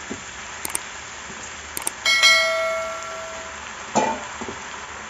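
Subscribe-button animation sound effect: two quick mouse clicks, then a bright bell ding about two seconds in that rings out for over a second. A knock comes about four seconds in, over a faint steady sizzle from the pan.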